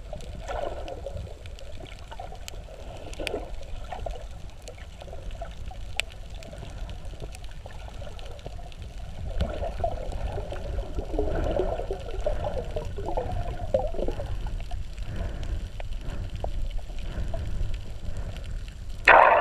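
Underwater ambience heard through a camera housing: a steady low rumble with gurgling water noise that swells for a few seconds midway, and scattered faint clicks. A sudden loud rush of water near the very end.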